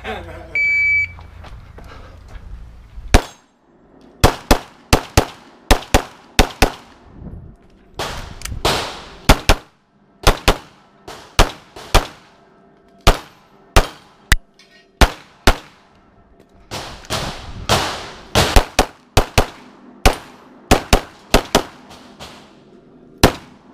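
Shot-timer start beep, a short high electronic tone under a second in, then a competitor firing a pistol course of fire: about forty shots in rapid strings of two to six, with short pauses between strings, the last shot near the end.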